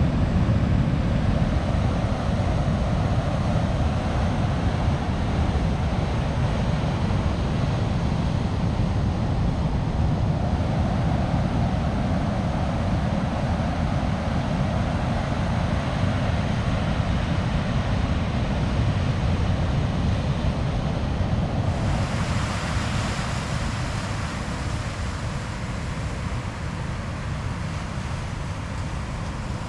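Ocean surf breaking and washing over a rocky shore: a steady, loud rush with wind on the microphone. About two-thirds of the way through it turns thinner and hissier.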